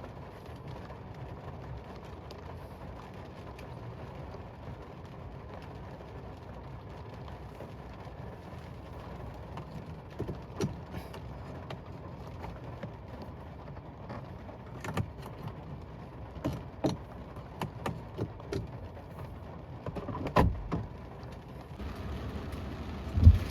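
Rain falling on a parked car, heard from inside the cabin as a steady hiss, with scattered taps and a few louder knocks in the second half.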